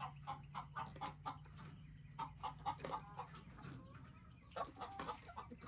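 Hens clucking softly in short, repeated calls, several a second, mixed with light clicks of eggs being lifted from a rollout nesting box's wire tray.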